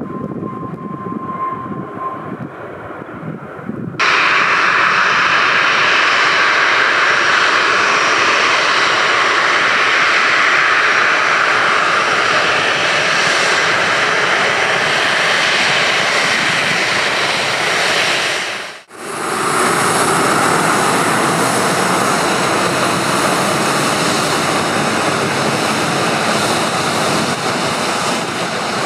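Boeing 737-800's CFM56-7B turbofan engines running close by as loud, steady jet noise. It comes in suddenly about four seconds in after a quieter stretch, and drops out for an instant about two-thirds of the way through.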